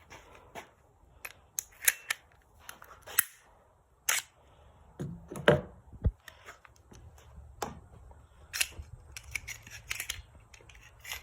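A Glock 44 .22 pistol being taken apart by hand: a string of irregular sharp clicks, snaps and clacks as its parts are worked loose and set down.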